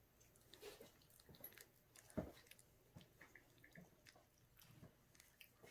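Near silence with faint scuffling and small clicks from three-week-old puppies moving about, and one louder knock about two seconds in.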